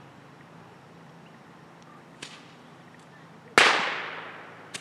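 A firework going off with a sudden loud crack about three and a half seconds in, its hiss fading away over about a second. A few faint pops come before it, and a short snap comes right at the end.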